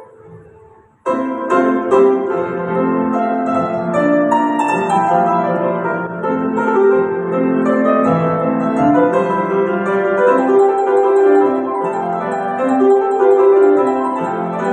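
Piano being played: a held note dies away, then about a second in a loud passage of many quick notes and chords starts and continues.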